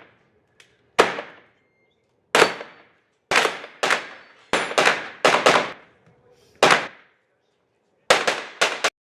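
Gunshots on a shooting range, about a dozen in all. Single and paired shots come at uneven intervals, then a fast string of three or four near the end, each shot echoing briefly.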